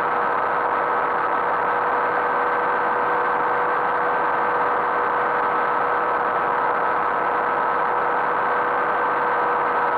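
Ultralight aircraft engine and propeller droning steadily in cruising flight, heard from on board: an even, unchanging note over a constant rush of noise.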